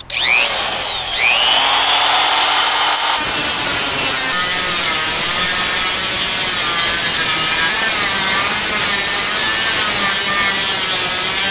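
Small corded power cutting tool with a cut-off disc, spinning up with a changing whine for about three seconds, then biting into the lid of a steel oil drum with a loud, harsh grinding that holds steady as it cuts around the rim.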